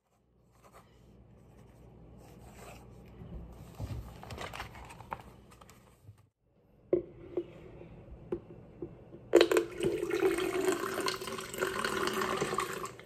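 Water poured from a glass measuring cup into a plastic pitcher, a steady splashing pour lasting about three seconds in the second half, after a few light knocks. Before it, faint rustling and handling of a spiral notebook.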